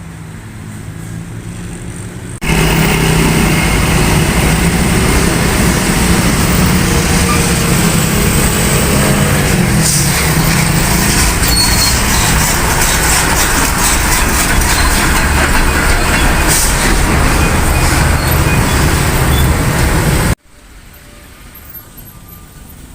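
Heavy road vehicle running close by: a loud, steady engine drone with road noise that starts abruptly about two seconds in and cuts off abruptly near the end, with quieter passing traffic before and after.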